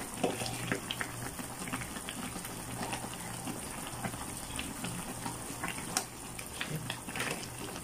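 Pan of saluyot and alugbati vegetable soup boiling, with steady bubbling and many small pops, and a ladle stirring in the broth.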